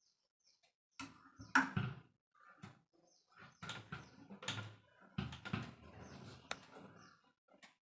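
Plastic clothes hangers clicking and scraping on a metal wardrobe rail, with cloth rustling as dupattas are hung up; irregular knocks throughout and a sharp click near the end.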